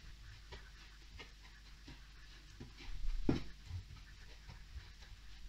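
A wooden spatula scraping and stirring cake crumbs around a nonstick frying pan as they toast. It makes soft, repeated strokes about once or twice a second, with one louder scrape about three seconds in.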